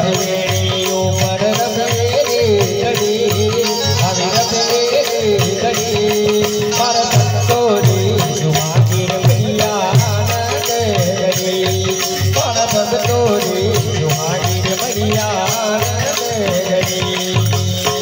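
Live bhajan music: harmonium and tabla playing a steady rhythm, with a man singing a melody that bends in pitch over them.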